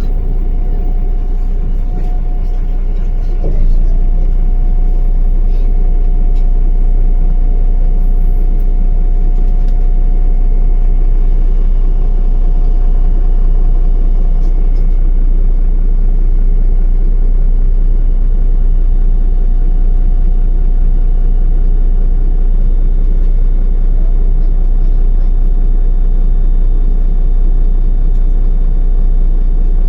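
MAZ-105 articulated city bus running, heard from inside: a steady deep engine and road rumble with a constant thin whine, getting louder about three and a half seconds in.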